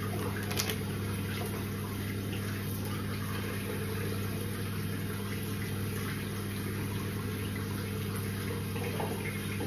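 Tap water running steadily into a sink, over a steady low hum.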